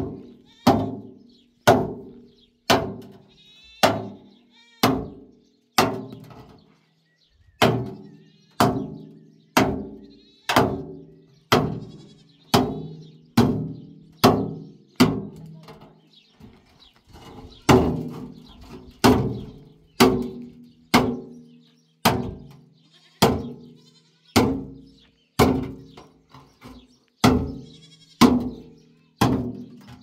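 Repeated hammer blows, about one to one and a half a second with a short pause about six seconds in, each blow ringing briefly.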